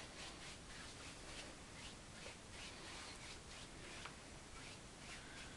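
Faint, quick, repeated swishes of a paintbrush sweeping wet oil paint across a canvas, several strokes a second.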